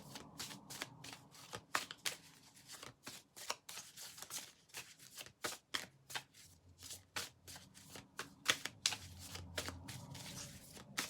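A deck of tarot cards being shuffled by hand: a run of quick, irregular card snaps and slaps.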